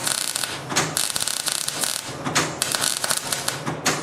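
Electric arc welding on steel, the arc crackling and popping steadily, with the welder turned down to avoid burning through the metal.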